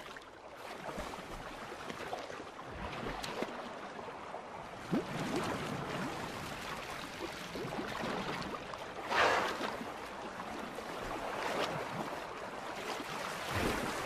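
Water splashing and lapping as a bottlenose dolphin moves at the surface while working a large salmon down its throat, with a louder rush of water about nine seconds in.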